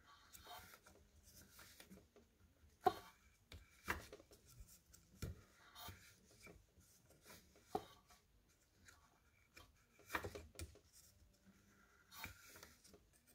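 Quiet handling noise as gloved hands wind a braided starter cord onto the recoil-starter pulley of a small motorcycle engine: rubbing and rustling of the cord and gloves, with about five light clicks and knocks against the metal starter housing.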